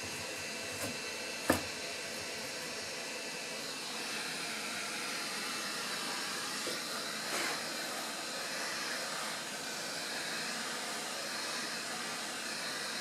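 Hot air rework station's heat gun blowing a steady hiss of air at the edge of a laptop's display glass to soften the adhesive tape beneath it. There is a single sharp click about one and a half seconds in.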